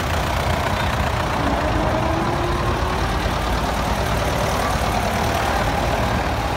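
Vintage tractor engines running steadily at low revs as the tractors drive slowly past.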